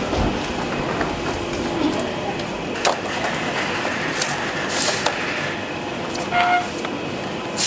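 Steady running noise of an electronics assembly-line conveyor belt, with scattered clicks and knocks as plastic trays of circuit boards are handled, and a short beep about six and a half seconds in.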